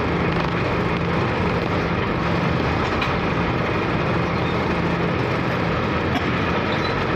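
A ferry's engine drones steadily under a dense, even rushing noise, with no change in level.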